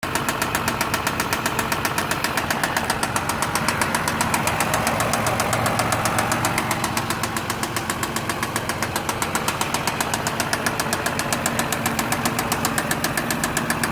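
2006 Mazda 6 V6 engine running with a rapid, even ticking knock. The owner can't locate it but thinks it comes from the top end of the engine.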